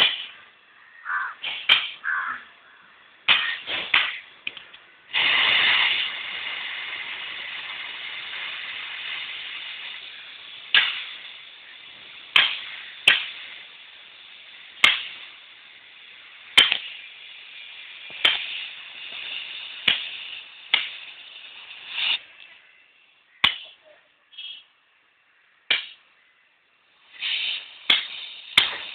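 LPG gas-cutting torch cutting a thin steel plate. A few sharp clicks come first. About five seconds in, a steady hiss of the torch's gas flame starts suddenly and fades over the next fifteen seconds or so, with sharp pops every second or two.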